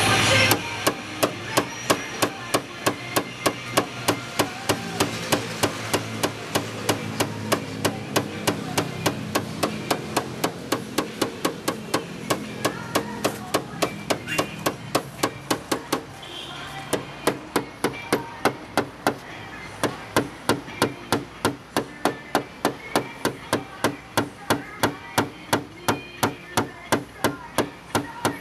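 Rapid, even hammer taps on a tap-down punch against a car body panel, about three to four a second with two brief pauses, knocking down high spots in paintless dent repair.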